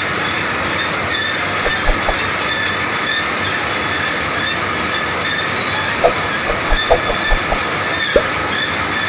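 Heavy wheeled roller chain of a rubber-glove dipping line running: a steady metallic rolling noise with a faint high squeal and short clanks from the links and rollers, several close together about six seconds in.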